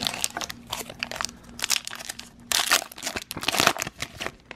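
Crinkling of a foil Pokémon trading card booster pack wrapper as it is handled, in irregular bursts with the loudest crackles a little past halfway.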